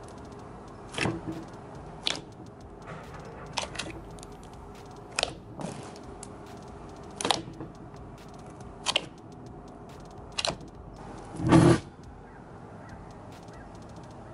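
Jelly slime made with instant snow powder being squeezed and pressed by hand, giving irregular wet squelches and pops, about ten in all, the loudest near the end.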